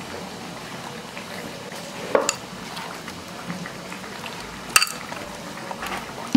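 Hands mixing salt, turmeric, chilli paste and mustard oil into raw hilsa fish pieces: soft, wet squishing, with a knock about two seconds in and a sharp ringing clink near five seconds.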